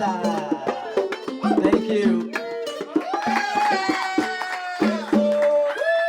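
Music with hand-drum strikes and long held melodic notes.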